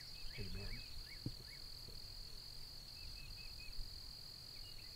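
Outdoor ambience: an insect's steady high-pitched trill with no breaks, with short bird chirps now and then and a low rumble underneath.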